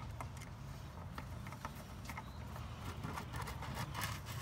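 Screwdriver tightening the screws of a pool pump's wiring-compartment cover: scattered small clicks and scrapes of metal on screw and plastic, over a low steady background hum.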